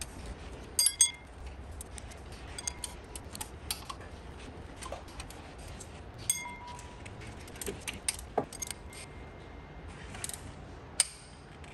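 Metal hand tools clinking and clattering: a few sharp, ringing clinks, the loudest about a second in, among scattered lighter clicks and taps, over a low steady hum.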